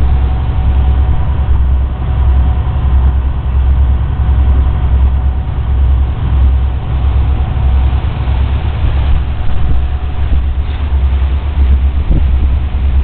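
Tour boat's engine running steadily under way, a deep low drone that pulses slightly, with a steady rushing hiss above it.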